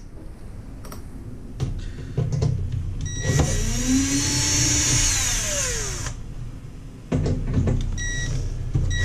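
Cordless drill/driver backing out screws from a toaster oven's case. After a few light clicks, the motor whirs for about three seconds with its pitch rising and then sinking, and a lower, steadier whir follows near the end.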